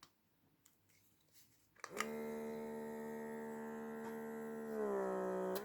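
Near silence, then about two seconds in a steady electric hum starts abruptly: one low pitch with many overtones. Near the end it gets louder and dips slightly in pitch.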